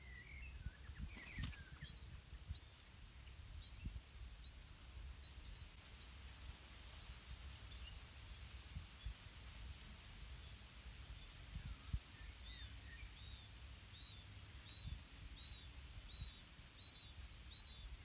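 Faint bird chirping: short high notes that start about two seconds in and repeat roughly once a second, coming quicker and in pairs toward the end. There is a sharp click early on and some low rustling thumps.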